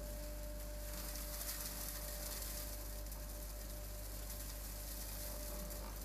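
Vacuum running steadily, air hissing through its corrugated hose as the nozzle sucks hay dust off wooden floorboards, over a steady motor whine and low hum.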